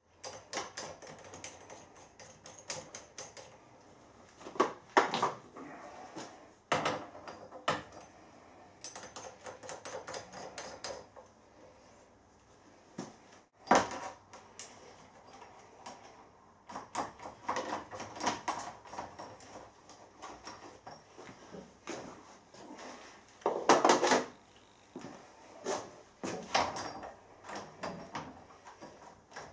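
Steel hold-down clamps, studs and nuts being handled and tightened on a milling machine table to hold down a plastic lid: irregular metal clinks, knocks and scrapes, with a few sharper knocks among them. The mill's motor is not running.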